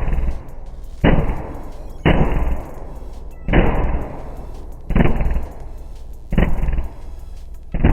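Mazda MX-5's four-cylinder engine through a loud homemade exhaust, idling with a deep rumble and blipped sharply about six times, once every second or so. Each blip starts suddenly and dies away.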